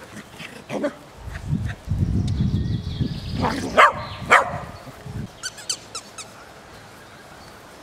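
Small dogs play-fighting: a low rumbling noise for several seconds, broken by two sharp barks about four seconds in, then a few faint short clicks.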